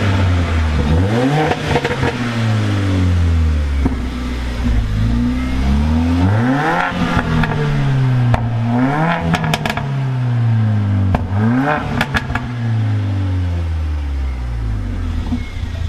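Mercedes-AMG A45's turbocharged 2.0-litre four-cylinder engine revved repeatedly while parked, rising and dropping back about five times, with pops and crackles from the exhaust as the revs fall, then settling back towards idle near the end.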